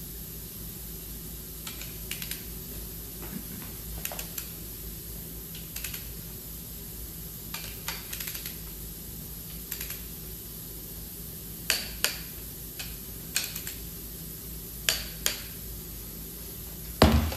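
Torque wrench tightening the main bearing cap fasteners to 85 Nm: short runs of ratchet clicks, then several sharp single clicks as the wrench breaks at its set torque. A louder clunk comes near the end.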